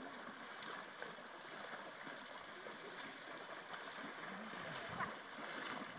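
Faint, continuous splashing of ponies wading through a shallow lake: an even watery hiss with no separate splashes standing out.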